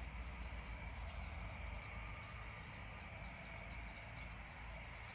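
Steady high-pitched insect chorus, with a low, unsteady rumble underneath.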